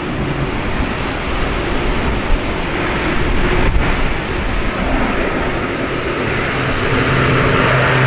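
Strong gusty wind rumbling over the microphone, with an ANA Bombardier DHC-8-400's Pratt & Whitney PW150A turboprops and propellers droning louder toward the end as the aircraft comes in low and close on a go-around in typhoon crosswind.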